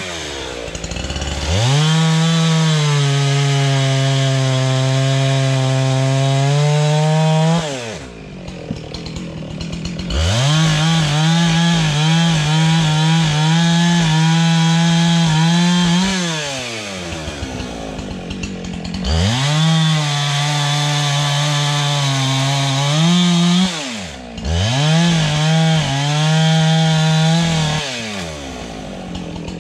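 Husqvarna two-stroke chainsaw bucking logs into rounds. It makes four cuts at full throttle, each a few seconds long, and the engine drops back toward idle between them.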